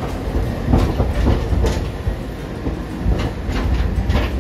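Hiroshima Electric Railway streetcar rolling past close by with a steady low rumble. Several sharp clacks come as its wheels cross track joints.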